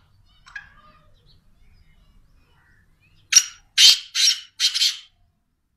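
Black francolin calling: four loud, harsh notes in quick succession about three seconds in, after a faint short call near the start.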